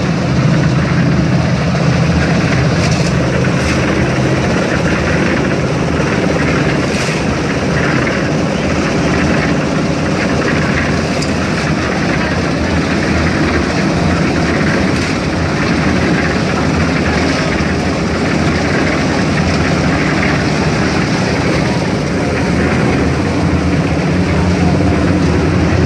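Portable concrete mixer running steadily, its engine humming as the drum turns and mixes wet concrete, with a few scrapes of a shovel in the wet concrete.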